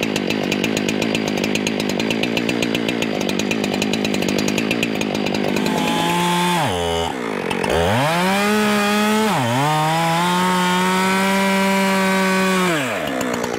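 Husqvarna chainsaw cutting white oak, its chain dull and not cutting well. It runs rough and steady for about six seconds. Then its pitch drops away and climbs back twice, holds high and steady, and falls off near the end.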